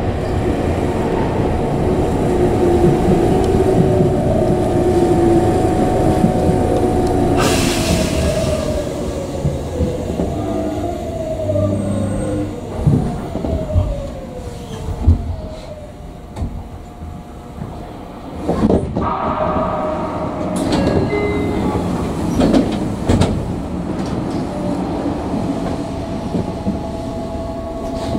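Tokyu 9000 series electric train running, heard from the driver's cab. Its traction-motor whine falls in pitch from about a third of the way in as the train slows, and the running noise drops off around the middle.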